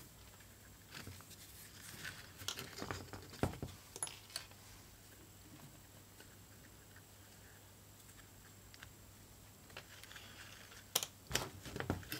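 Hand-stitching leather: faint scratching and rustling as waxed thread is drawn through the leather by hand, with scattered small clicks clustered in the first few seconds and again near the end, and a quieter stretch in between.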